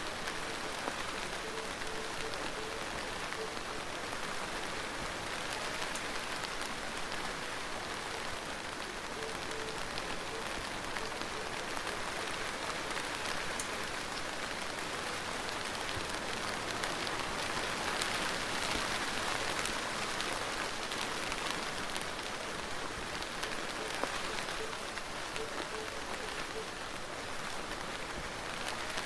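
Steady heavy rain falling, a dense even hiss of drops with fine patter, swelling a little about two-thirds of the way through.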